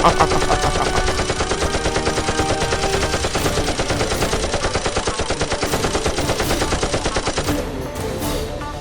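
Rapid automatic gunfire, a fast, even stream of shots that dies away about a second before the end.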